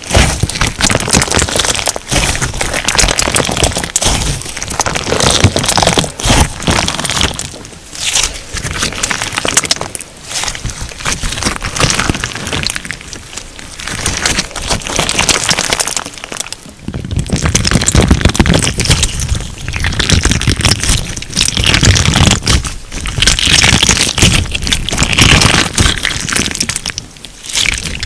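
Crunch slime being squeezed and pressed by hand: dense crackling and popping that comes in waves, with short lulls between presses.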